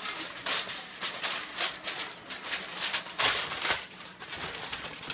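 Aluminum foil crinkling and rustling in uneven bursts as it is pressed and folded by hand into a glass baking dish, loudest about three seconds in.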